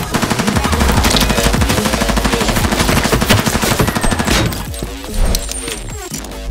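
A rapid rattle of fast, evenly repeated sharp hits, like automatic gunfire, lasting about four and a half seconds, then breaking into a few separate hits and a swell near the end, with music under it.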